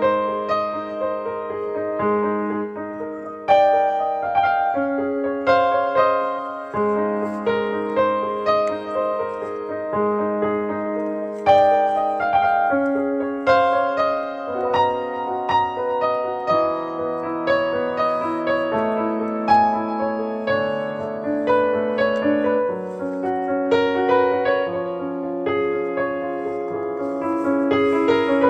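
Background piano music, single notes and chords struck one after another without a break.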